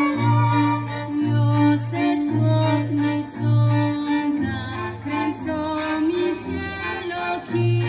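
Polish highlander (góral) folk string band playing a lively tune on several violins over a cello bass, which bows held notes about once a second, with women's voices singing along.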